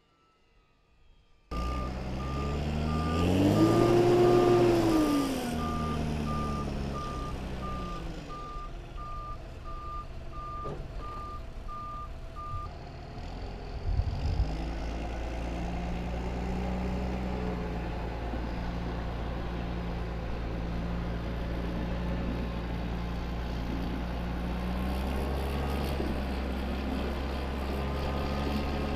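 A vehicle's reversing alarm beeping steadily for about ten seconds over running engines, whose pitch rises and falls a few seconds in. After that, a steady low engine drone continues.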